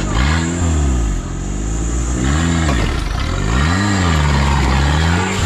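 An off-road 4x4's engine being revved up and down in repeated bursts, its pitch rising and falling about four times.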